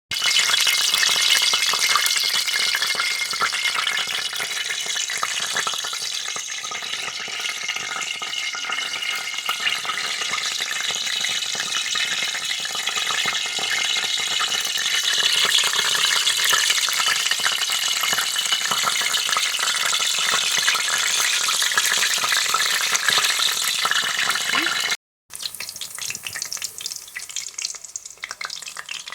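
Plantain fritters (kaakro) frying in hot palm oil in a pan: a steady, dense sizzle full of crackles. Near the end it breaks off for a moment and comes back quieter and more spattery.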